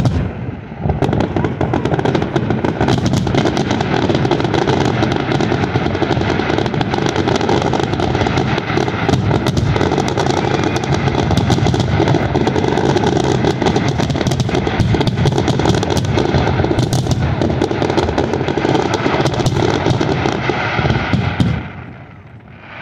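Fireworks display finale: a dense, continuous barrage of shell bursts, the bangs running together like rapid gunfire for about twenty seconds, then dropping away sharply near the end into a fainter sound that fades out.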